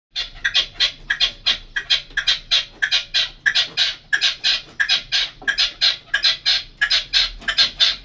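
Caged red-legged partridge decoy bird singing its 'cante': a fast, unbroken run of harsh, clucking call notes, about four a second.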